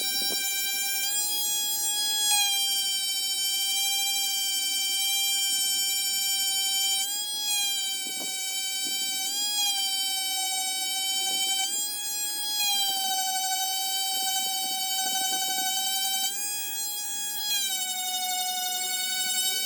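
Electric power sander running with a steady high-pitched motor whine, its pitch shifting slightly up and down every few seconds.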